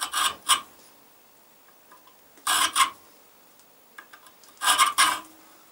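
Flat hand file scraping across the steel of a knife blank clamped in a bench vise, in three short bouts of two or three quick strokes each, about two seconds apart.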